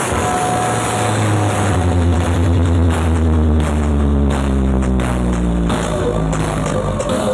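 Electronic dance remix played very loudly through a towering stack of speaker cabinets, with a heavy sustained deep bass that comes in about a second in and drops out near six seconds.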